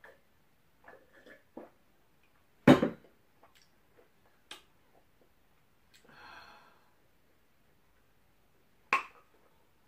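A drinking glass set down hard on a table: a loud knock about three seconds in, after a few small mouth clicks. A breathy exhale follows a few seconds later, then another sharp knock near the end.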